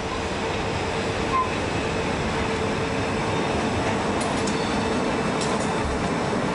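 Four-axle DB class 140 (E40) electric locomotive passing close by with a freight train: a steady rumble of wheels on rail with a constant hum over it, growing a little louder as the locomotive comes alongside.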